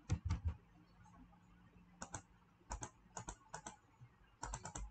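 Computer keyboard keys being typed in short runs of light clicks: a few at the start, then separate bursts around the middle and near the end.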